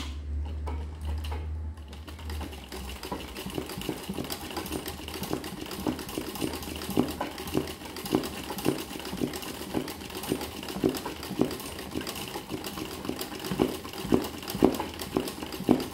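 Sewing machine doing free-motion embroidery. A low hum comes first, then about two seconds in the needle starts stitching in fast runs of ticks, uneven as the fabric is guided by hand.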